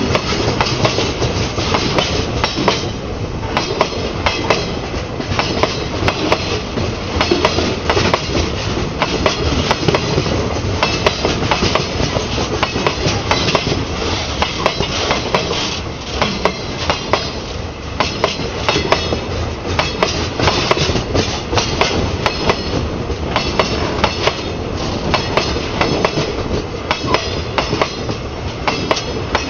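Freight train of open gondola wagons passing close at speed, its wheels clacking on the rails in a constant clickety-clack with many sharp knocks over a steady rumble and rattle.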